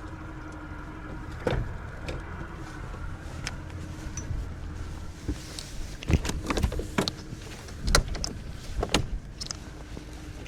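A small boat's motor running steadily with a low rumble and a held hum, while sharp irregular knocks, most between about six and nine seconds in, break through, typical of the hull slapping on choppy water.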